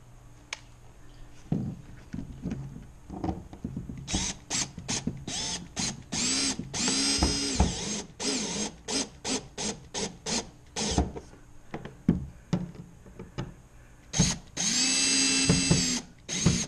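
Power drill driving screws in a string of short trigger bursts, the motor's pitch rising as each burst spins up, with one longer run of about two seconds near the end. A few light knocks of handling come before the drilling starts.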